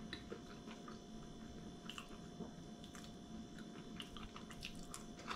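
Faint chewing and soft wet mouth sounds of a person eating pressed pig's head meat, with a few small clicks scattered through it over a steady faint hum.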